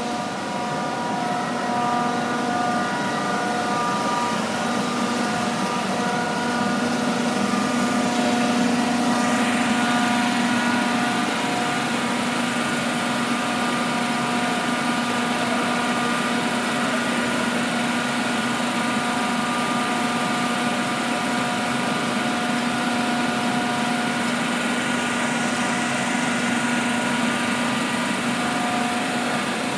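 CK6031B heavy-duty facing lathe running, its spindle turning a large steel drum: a steady machine hum with several constant whining tones from the drive.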